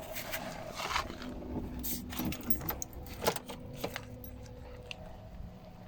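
Small metallic clinks and rattles from handling tools and wiring in the car, scattered over a faint steady hum.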